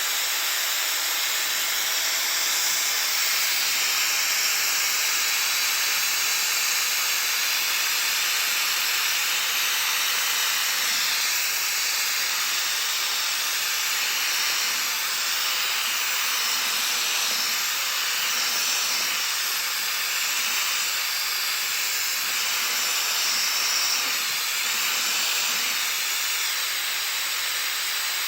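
Small suction fan of an H0-scale model-railway track vacuum cleaner running steadily, a constant airy hiss with a faint wavering high whine, as it sucks up a test mixture of dirt from the track.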